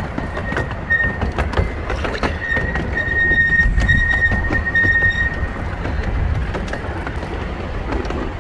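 Small train's wheels running on narrow-gauge track: a steady rumble with scattered rail clicks. A high wheel squeal sets in about a second in and fades out after about five seconds.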